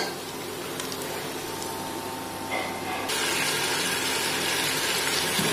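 Oil sizzling in a frying pan with sliced onions. About three seconds in the sizzle turns louder and brighter as yogurt-marinated chicken pieces fry in the pan.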